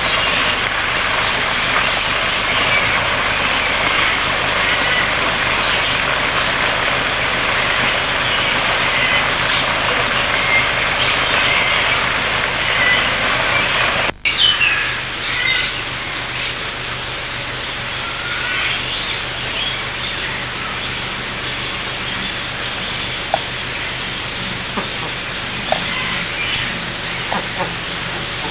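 Waterfall rushing with a steady hiss of falling water, with birds chirping over it. About halfway through the sound drops out for a moment and comes back as a quieter hiss with repeated short, high bird chirps.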